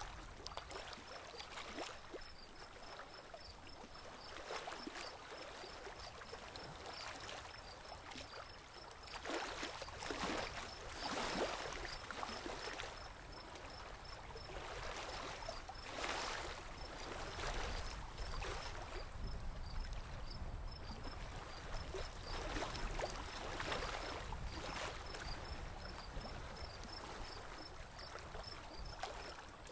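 Water swishing and gurgling around a small boat moving slowly through calm water. Louder swishes come every second or two through the middle.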